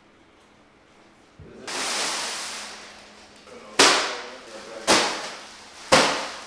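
A loud noisy swell rises and fades, then a series of loud, sharp bangs about once a second, each ringing off briefly.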